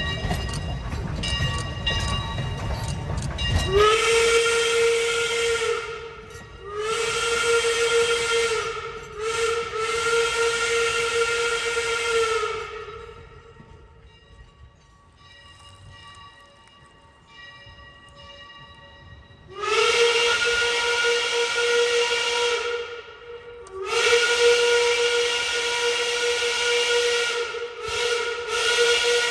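Steam locomotive whistle on a replica 4-4-0 locomotive blowing in a series of long blasts: three in a row, a pause of several seconds, then two more long blasts followed by short ones near the end. Each blast holds one steady pitch with the hiss of steam.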